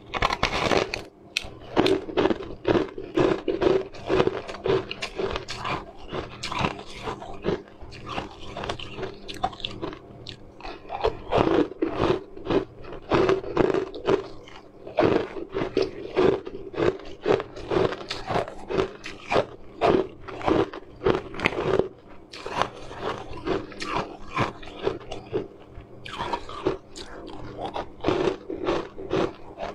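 A person biting into and chewing chunks of frozen sweet ice, a dense run of sharp crunches with a few short pauses.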